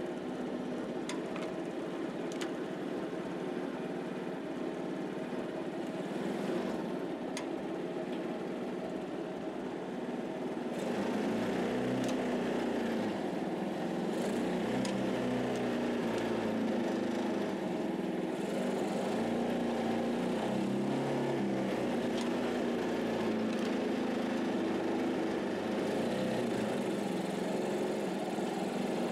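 Motorcycle engine fitted to a small tractor running under way, with a few sharp clicks in the first eight seconds. About eleven seconds in its note goes up and it gets louder, and its pitch wavers from then on.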